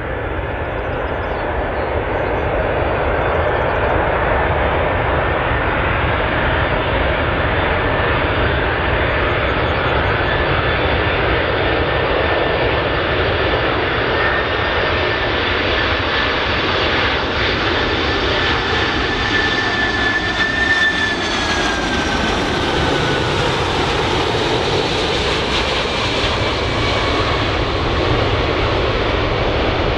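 Airplane engines running loud and steady on a landing approach, with a high whine that slides down in pitch about two-thirds of the way through.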